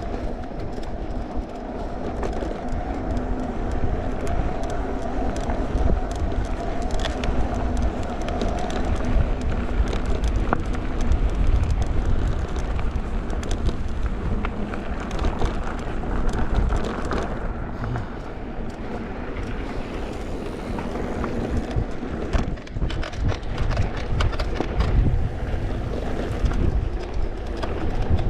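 Haibike Flyon carbon electric mountain bike ridden over rough ground: steady rolling rumble with irregular clattering and knocking from the frame. The owner blames the clatter on the crank and pedal area, the headset and handlebars, and a battery cover with dust from the ground in it.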